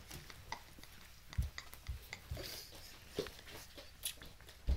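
Belgian Shepherd puppies gnawing a large raw meaty bone: teeth clicking and scraping on the bone, with irregular dull knocks as it shifts, the loudest near the end.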